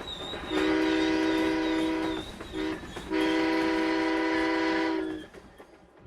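Train horn sounding a chord of several notes together: a long blast, a very short toot, then another long blast.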